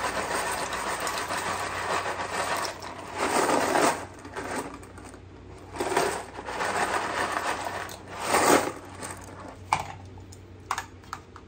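Dry pasta noodles rattling and clattering as they are handled and poured out of the package, in several bursts, with a few sharp clicks near the end.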